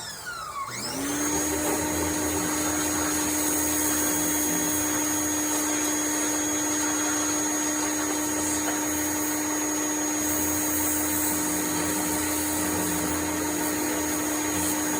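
Pressure washer running and spraying. Its motor whine winds down and straight back up about a second in, then holds steady over the hiss of the water jet.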